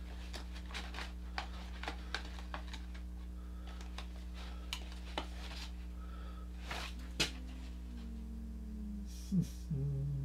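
Paper rustling and light sharp clicks as stickers are handled inside a Priority Mail envelope, over a steady low electrical hum. Near the end a man hums a brief low note.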